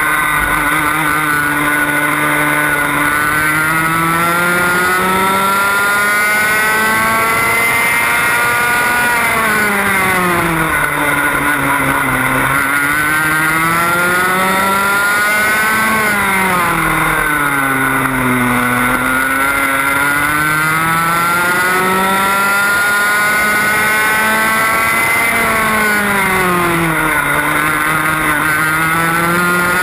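125cc TAG two-stroke kart engine heard from a camera mounted on the kart, racing flat out: the revs climb steadily along each straight and drop sharply into each corner, about four times over.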